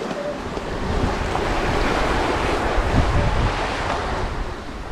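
Surf washing onto the beach, with wind buffeting the microphone; the wash swells up over the first few seconds and eases off near the end.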